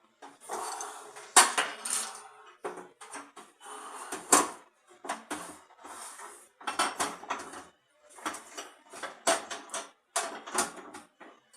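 Metal gas stove parts being handled and knocked together: irregular clinks and clatters, several a second, with short pauses.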